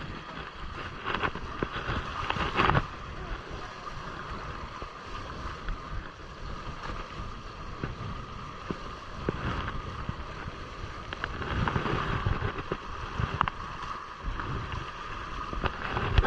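Water sloshing and gurgling against the hulls of a Hobie Cat sailing catamaran under sail in light wind, with wind buffeting the microphone. Two louder sloshes come about a second and about three seconds in.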